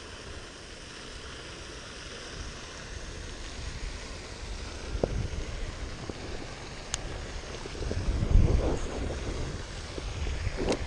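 Wind buffeting the microphone in gusts over a steady outdoor hiss, strongest about eight seconds in, with a few faint clicks.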